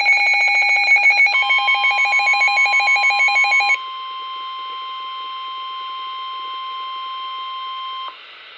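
Weather-radio alert tones: a fast, pulsing electronic alarm beep, joined about a second in by the steady 1050 Hz NOAA Weather Radio warning alarm tone. The beeping stops about four seconds in; the warning tone carries on alone and cuts off suddenly near the end.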